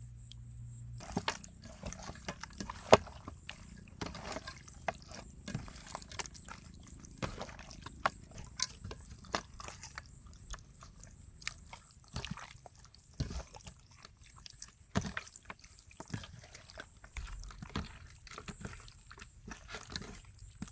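Hands squishing and massaging a wet soy-sauce marinade into raw whole quail: irregular sticky squelches and smacks, starting about a second in.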